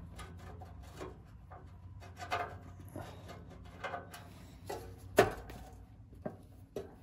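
Hands handling and fitting a sheet-metal rear cover plate on a Cub Cadet garden tractor: scattered light clicks, rubs and taps, with one sharper metal knock about five seconds in. A low steady hum runs underneath.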